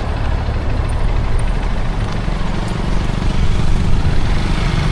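Steady rumble of a moving vehicle: road and engine noise with no distinct beat.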